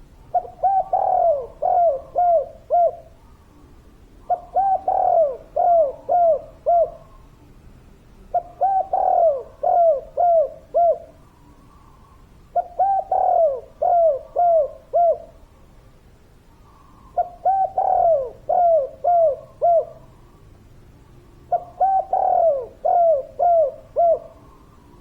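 Spotted dove (tekukur) cooing in a dense, steady song: six phrases, each a quick run of five or six short dropping coos, repeated about every four seconds.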